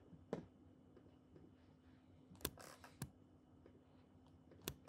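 A few isolated computer-mouse clicks, about four spread out, over a faint steady hum. A short rustle follows the second click.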